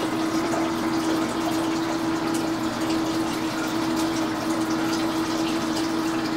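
Bathtub faucet running water into a bucket: a steady fill, with one constant low tone through it.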